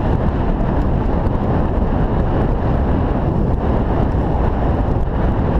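Steady wind rush buffeting an action camera's microphone while riding a bicycle along an asphalt road.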